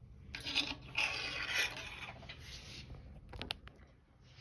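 Small metal lock parts being handled: scraping and rubbing for the first two seconds, then two sharp clicks about three and a half seconds in.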